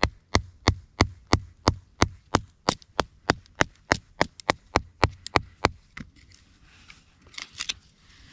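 A thin wooden stake being driven into sandy soil by striking its top with a knife: about nineteen sharp wooden knocks, about three a second, stopping a little after halfway. A short patter of lighter clicks follows near the end.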